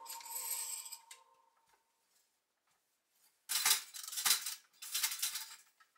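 Three short rasping bursts of handling noise from kitchen work at the counter, about a second apart, after the last of the music fades out near the start.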